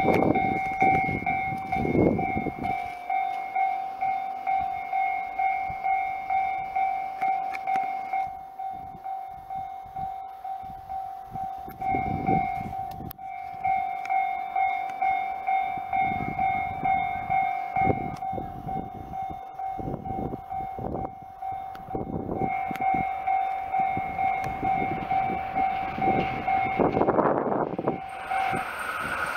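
Japanese railway level-crossing alarm ringing as a train approaches: one electronic tone repeated in a fast, even rhythm. Near the end the noise of the oncoming Super Hokuto diesel express rises beneath it.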